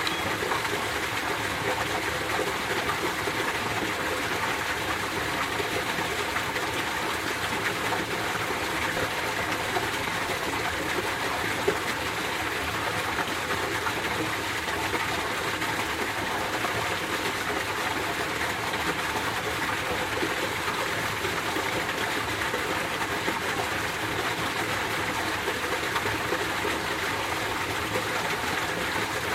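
Mountain stream water flowing over rocks, a steady, unbroken rushing.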